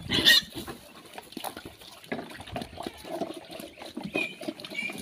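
Pigs feeding at a trough: wet slurping, chewing and snuffling from several animals, with a loud short call from one pig right at the start and two brief high squeaks near the end.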